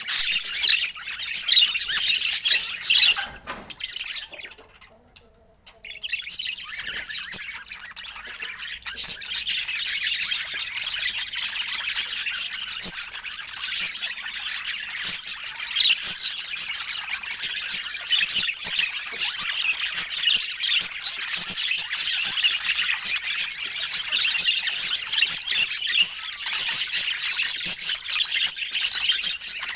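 Budgerigars chattering, chirping and squawking in a dense, continuous stream, with a short lull about four seconds in.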